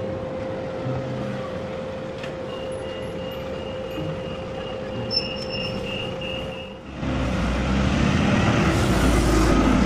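A tram standing at a stop gives a steady electric hum with a faint high tone over it. About seven seconds in, a louder low rumble takes over as a red double-decker bus drives past close by.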